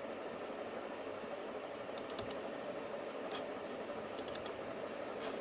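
Quick runs of clicks at a computer's keyboard and mouse, about two seconds in and again a little after four seconds, over a steady background hiss.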